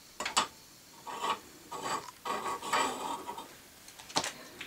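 A small metal holder clamping a cross being set down and shifted on a soldering block: a sharp click, then a few short scraping, rubbing strokes of metal on the block, and another click near the end.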